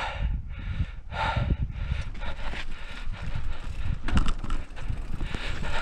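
Full-suspension Scott mountain bike riding over sandstone slickrock, heard from a helmet camera: wind rumbling on the microphone with tyre and frame rattle, and a sharp clatter about four seconds in. The rider's hard, rhythmic breathing comes through in short puffs at the start and again near the end.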